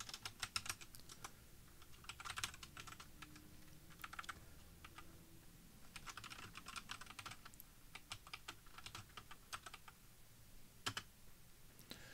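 Computer keyboard typing, in quick bursts of keystrokes with short pauses between.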